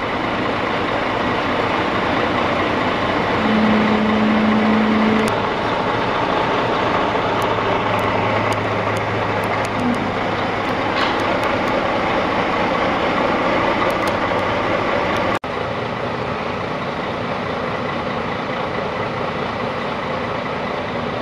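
Steady engine rumble of heavy recovery trucks running, with street noise; the sound drops and changes abruptly about fifteen seconds in.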